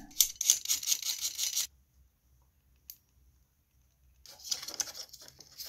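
Scratchy clicking and rustling of hands working a plastic computer-fan frame and a hot glue gun during hot-glue reassembly. The sound stops dead about two seconds in, there is one lone click in the gap, and the scratchy clicks resume near the end.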